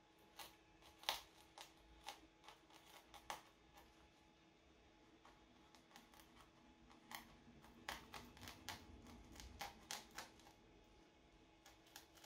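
A craft knife scoring dense foam around a tape measure, with gloved hands handling it: faint, irregular clicks and scratchy ticks, several a second at times.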